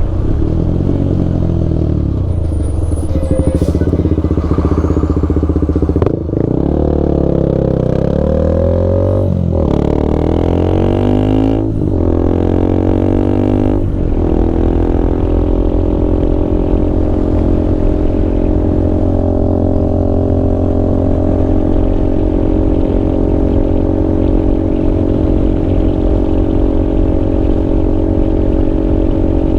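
Motorcycle engine heard while riding: the revs rise and fall through the gears for the first half, then settle into a steady cruise.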